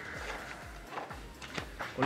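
A paper rulebook being flipped through, giving a few soft page flicks and rustles about halfway through and near the end, over quiet background music with a steady beat.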